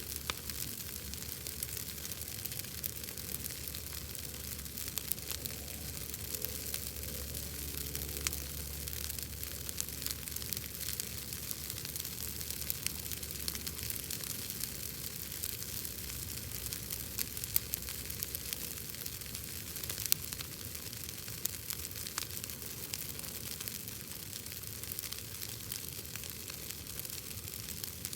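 Wood bonfire crackling: a steady hiss with many small, irregular pops, and a few louder pops.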